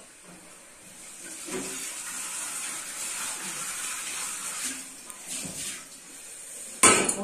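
Kitchen tap running into a steel sink as dishes are rinsed by hand, starting about a second in and easing off near the end. A sharp clatter of dishes follows just before the end.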